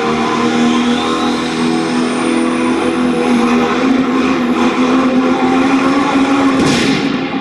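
Diesel pickup truck engine running hard under load on a pull, with a high turbo whistle climbing over the first few seconds. Near the end comes a short loud rushing burst, then the whistle cuts off and the engine sound drops.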